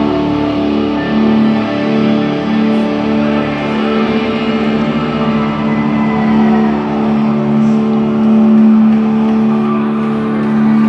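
Live rock band's electric guitars through stage amplifiers, holding a loud, steady, sustained chord.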